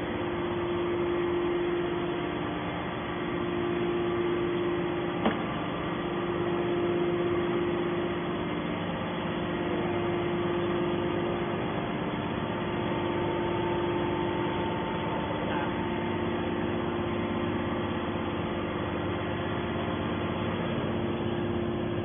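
Hydraulic scrap-metal baler's power unit (electric motor and hydraulic pump) running with a steady hum and a steady mid-pitched tone, with a single click about five seconds in.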